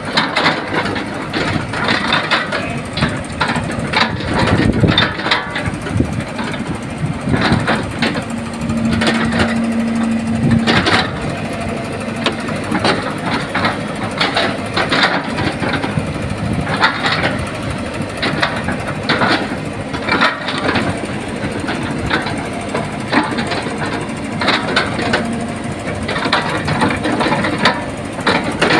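Excavator working: its engine running under a dense, irregular clatter of metal knocks and scrapes. About eight seconds in, a steady single tone sounds for around two seconds.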